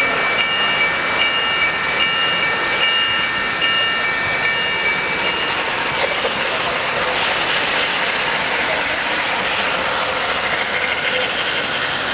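Three-rail O-scale model trains running on the layout track, a steady rolling clatter. During the first half a set of high steady tones sounds, the top one coming and going a little more than once a second, and fades out about halfway.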